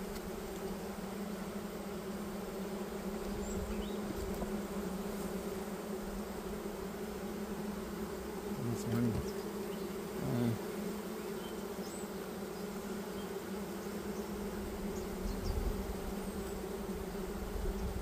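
Honeybees buzzing at an open hive: a steady, dense hum with a second band an octave above. It swells briefly twice, about nine and ten and a half seconds in.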